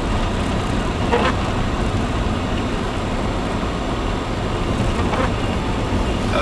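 Steady road and engine noise inside a moving car's cabin, with the tyres running on a snow-covered road.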